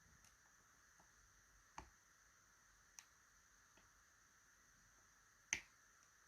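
Faint, sparse clicks of a lock pick working the pins of a TESA T80 lock held under a tensioner, against near silence: three distinct clicks, the loudest near the end.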